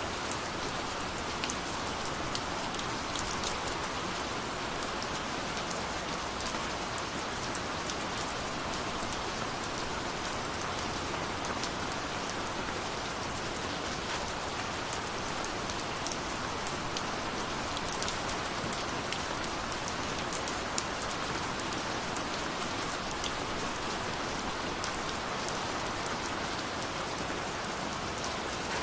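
Steady rain falling, a constant hiss with many small drop ticks and splashes scattered through it.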